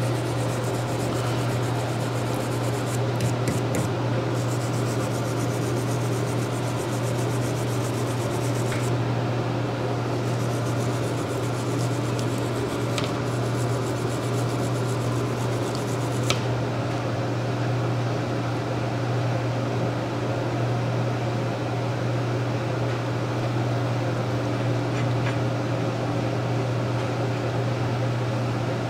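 A flat hand abrasive rubbing in strokes over a welded lobe of a steel big-block Chevy roller camshaft, hand-dressing the lobe, under a loud steady low mechanical hum.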